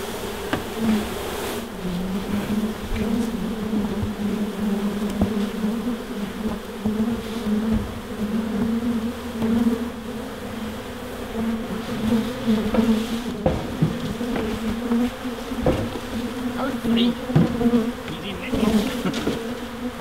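A swarm of honey bees buzzing in a steady, pitched hum, the bees stirred up as they are brushed off a fence into a box, with occasional light knocks.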